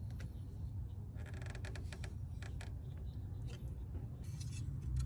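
A pipe wrench working a tie rod nut loose: faint metal creaks and clicks, with a quick run of clicks a little over a second in.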